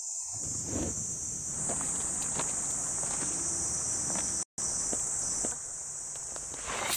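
Crickets chirping steadily in a night-time field, a continuous high trill over low rustling with scattered soft taps. The sound cuts out for an instant about four and a half seconds in.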